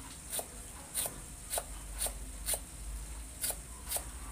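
A large kitchen knife slices a lemongrass stalk into thin rings on a round wooden cutting board. Each cut is a sharp tap of the blade on the wood, coming about two a second, with a short pause about halfway through.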